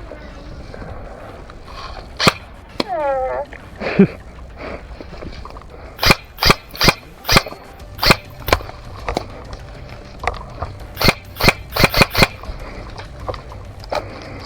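Airsoft guns firing single shots, each a sharp pop: two lone shots in the first four seconds, then a run of about six shots, and a quicker cluster of shots a few seconds before the end.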